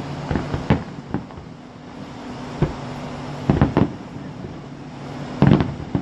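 Fireworks going off in a series of sharp bangs and pops: three in the first second, one mid-way, a cluster a little after that, and the loudest pair near the end. A steady low hum runs underneath.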